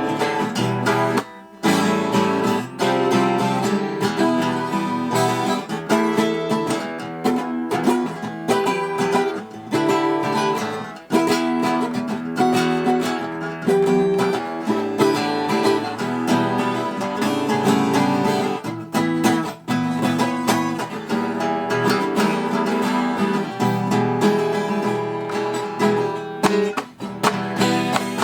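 Acoustic guitar music, a steady run of strummed and plucked chords.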